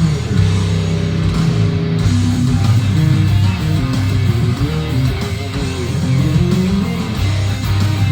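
Heavy metal instrumental on electric guitar: a melodic lead line with bent notes over a low rhythm part.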